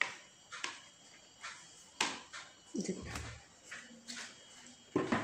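Banana leaf crinkling and a plastic plate knocking as a steamed leaf-wrapped rice parcel is unwrapped and handled, in a string of short rustles and taps.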